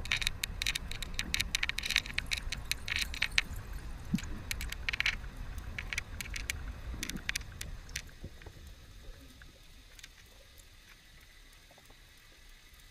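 Underwater sound: a low rush of water with a dense run of sharp clicks and crackles, which dies away about eight seconds in to a faint, sparse crackle.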